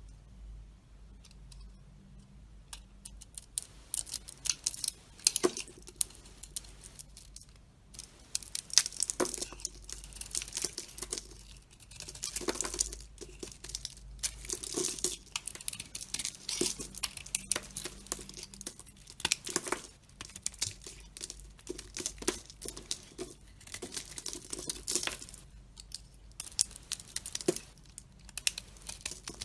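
A blade cutting and carving dry soap: repeated crisp, crackly scraping cuts in irregular strokes, beginning about three seconds in.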